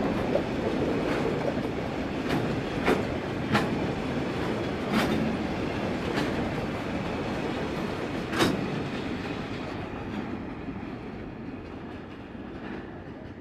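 A freight train's concrete wagons rolling past on the rails, the wheels clacking over the rail joints with a sharp knock every second or so. The sound fades over the last few seconds as the wagons draw away.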